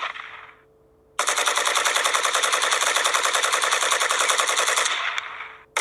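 Machine-gun sound effect playing back: a short burst, then a long rapid string of shots, more than ten a second, for about four seconds, and another short burst at the end.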